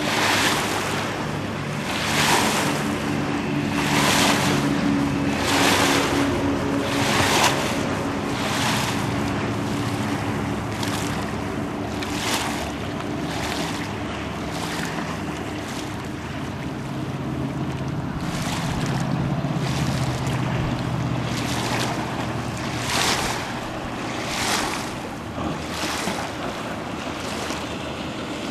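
Sea Ray cabin cruiser's engines running at planing speed, a steady drone whose main note sits lower from about halfway through. Over it comes a rush of water and wind every second or two.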